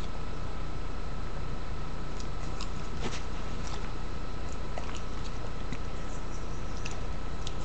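Steady background hum and hiss with two faint steady tones, under scattered soft clicks of chewing.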